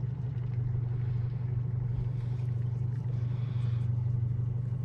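Boat engine running steadily: an even low hum with no change in speed.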